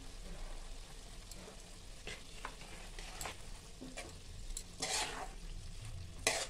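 Steel spatula stirring soya chunks and shredded cabbage frying in a kadhai, with scattered scrapes and clacks of the spatula against the pan. The loudest strokes come about five seconds in and just before the end.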